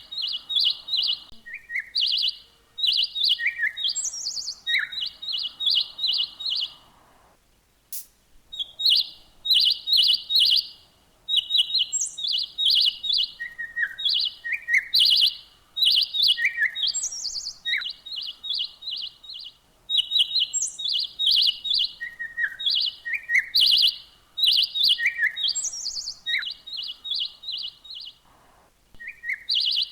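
Songbird singing: phrases of rapid, high chirps and trills repeated over and over, with brief pauses between runs.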